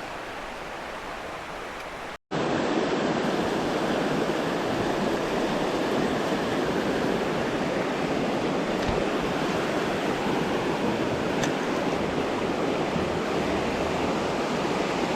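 Fast-moving creek water rushing steadily. It cuts out for a moment about two seconds in and comes back louder.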